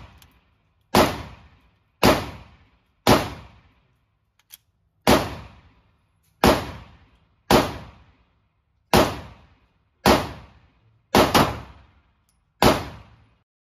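Eleven pistol shots at an uneven slow-fire pace, about one to two seconds apart, with a quick double shot about eleven seconds in. Each shot echoes briefly in the enclosed indoor range.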